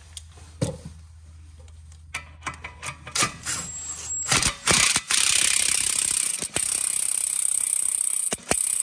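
Power tool spinning a socket to tighten the bolt of a rear adjustable camber arm: a few clicks as the socket is fitted, then from about four and a half seconds a loud continuous mechanical run that stops just before the end.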